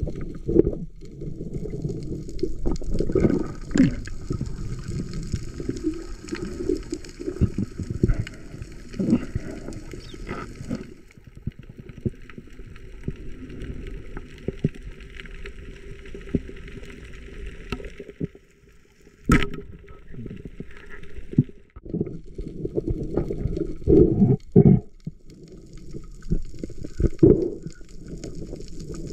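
Water gurgling and sloshing, mostly low and muffled, with irregular knocks and one sharp click about two-thirds of the way through.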